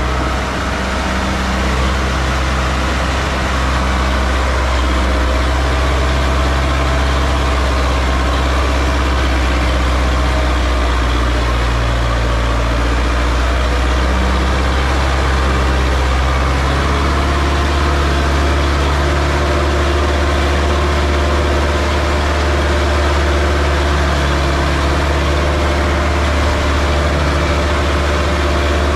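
Sonalika tractor's diesel engine running steadily with a deep low hum as it pulls a trolley loaded with earth. Its pitch shifts slightly a little past halfway.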